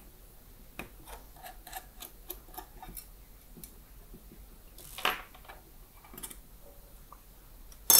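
Small screwdriver ticking and clicking as screws are backed out of an aluminium-alloy mini PC case, with a louder metal clack about five seconds in and a sharp knock near the end as the front panel is worked loose.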